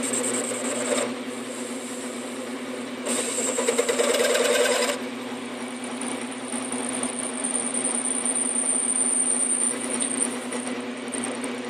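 South Bend 9-inch lathe running with an aluminium pulley turning in it, a steady hum under a strange noise that the machinist cannot trace, since nothing is hitting. A louder rough rasping comes from about 3 to 5 seconds in, then a thin high whine from about 6 to 10 seconds.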